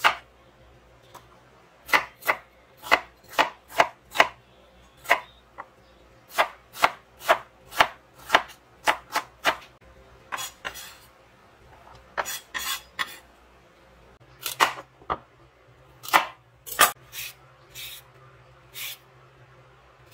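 Chef's knife chopping an onion on a bamboo cutting board: a run of sharp knocks as the blade strikes the board, about two a second, with short pauses between runs.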